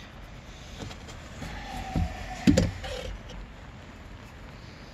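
Two dull knocks about half a second apart, over low steady background noise.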